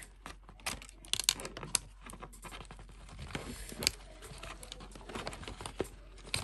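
Clear plastic packaging rustling and crinkling as it is handled, with scattered small clicks and a few sharper ones.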